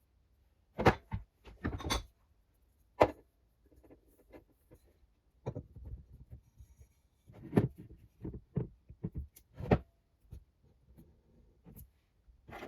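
Irregular knocks and clinks of metal suspension parts being handled and fitted together during radius arm assembly, about a dozen sharp strokes with short gaps between.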